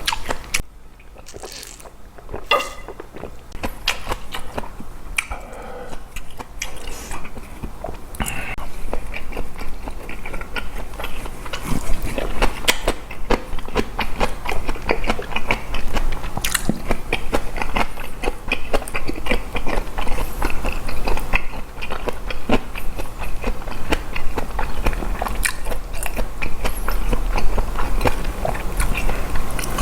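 Close-miked eating sounds: chewing of boiled pork and fresh napa cabbage kimchi with rice, full of wet mouth clicks and smacks. It is quieter for the first few seconds and grows busier from about eight seconds in.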